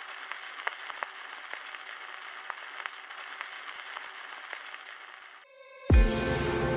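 Old-film crackle sound effect: a steady static-like hiss scattered with clicks and pops, stopping about five and a half seconds in. Near the end a deep bass hit opens the music.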